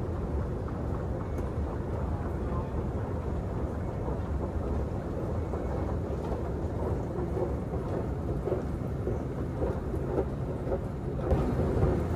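Steady low rumble of a running escalator and subway-station ambience, with a few short knocks near the end.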